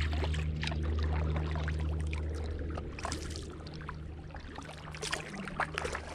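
Kayak paddling: water dripping and splashing off the paddle blades in small, irregular splashes, over a steady low hum.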